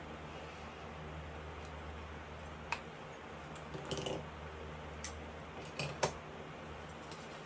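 Electric fan running steadily with a low hum and airy rush, with a handful of short clicks and rustles over the middle of the stretch.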